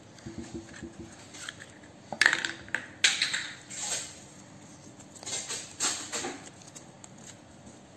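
Hands working a plastic toy capsule and a curled paper insert: scattered clicks and crinkly rustles, with two sharp plastic clacks about two and three seconds in and a burst of paper crinkling just after the middle.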